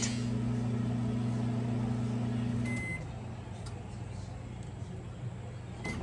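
ZLINE drawer microwave running with a steady low hum, its new magnetron heating normally; the hum stops about three seconds in as the countdown runs out, with a short beep. Another short beep sounds near the end.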